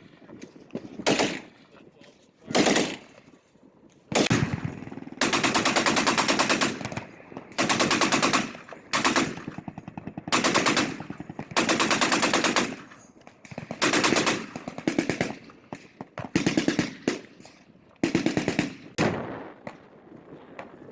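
Machine-gun fire in bursts: a few short bursts early, then from about four seconds in, long strings of rapid automatic fire broken by short pauses.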